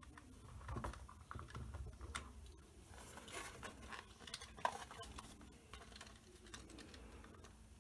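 Faint, scattered small clicks and rubbing as hands turn a 3D-printed plastic clock face and press the minute hand onto the clock movement's spindle.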